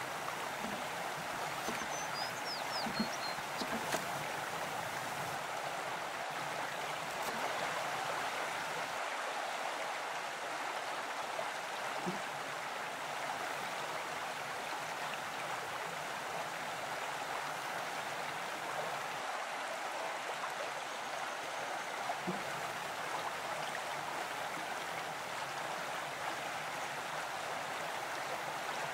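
Mountain stream running with a steady, even rush of water, with a few brief high chirps about two to four seconds in.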